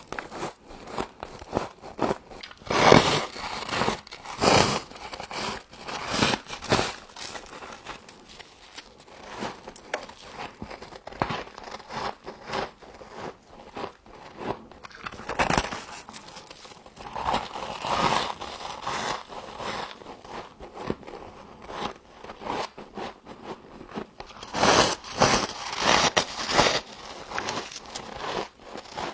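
Frost being bitten and chewed close to the microphone: crisp, crackling crunches in irregular clusters, the loudest about 3 seconds in and again about 25 seconds in.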